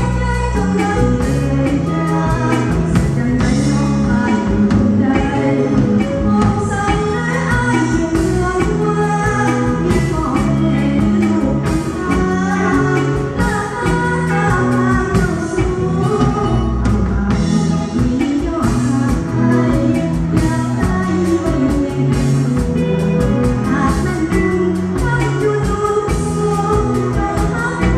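Lao lamvong dance song played live by a band, a singer over a steady drum beat and bass line.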